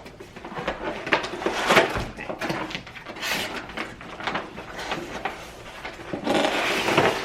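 Rustling, clicks and knocks of packaging being handled and worked at while someone struggles to open a boxed bathroom faucet, with a denser stretch of rustling near the end.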